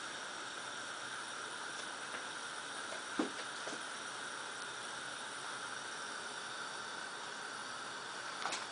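Steady hiss of a lit gas hob burner heating a glass beaker of linseed oil, with a few faint ticks about three seconds in and near the end.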